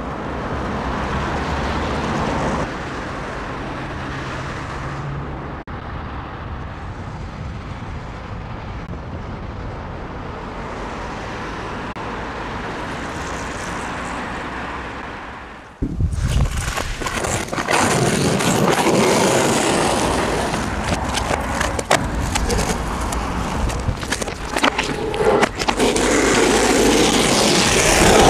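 Skateboard wheels rolling on rough asphalt, a steady grinding hiss. About sixteen seconds in the sound jumps louder and closer, with frequent clacks and scrapes of the board.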